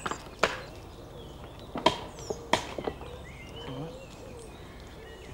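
Stones knocking on stone as a dry stone wall is laid by hand: three sharp clacks in the first three seconds, with birds chirping in the background.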